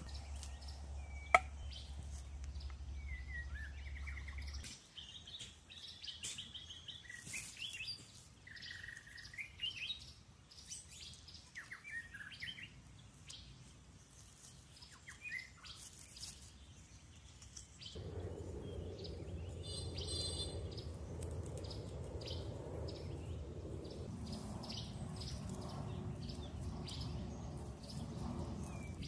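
Wild birds chirping and calling in short gliding notes through most of the first two-thirds, over a low hum in the first few seconds. A sharp click comes about a second in. From about two-thirds of the way in a steady noise with light ticks takes over.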